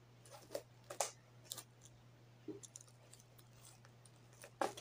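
Faint scattered clicks and rustles of a book being handled and turned over in the hands, the loudest just before the end.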